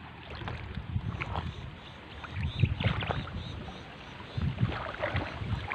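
Shallow river water splashing and sloshing in irregular bursts as someone wades through it, loudest about halfway through and again near the end, with wind buffeting the microphone.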